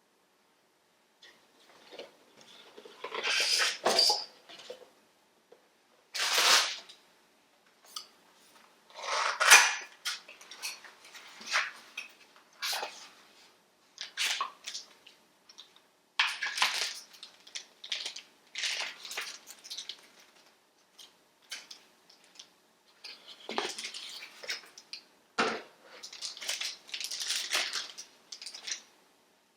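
Unboxing handling sounds: packaging and small parts rustling, scraping and clicking in irregular bursts, with short pauses between them.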